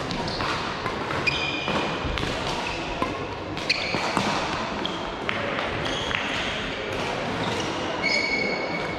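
Players' shoes squeaking on an indoor court floor, with sharp racket hits and footfalls during a rally, in a large echoing hall.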